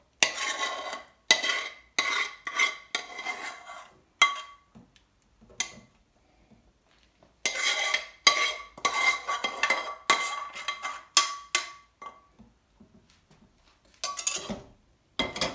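A metal spoon scraping and knocking curry out of a metal pan into small stainless-steel karahi dishes, the pan ringing with each stroke. It comes in two long runs of scrapes with a pause between them, and a few last strokes near the end.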